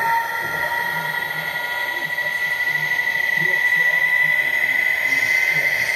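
OO gauge model Class 66 diesel locomotive running past with a train of container wagons. It gives a steady high whine that creeps slightly up in pitch, over a low, uneven pulsing rumble from the running train.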